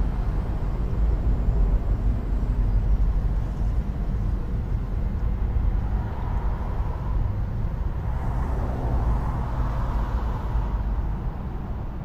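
Steady low rumble of street ambience with distant traffic, with a brighter rushing sound swelling and fading in the middle.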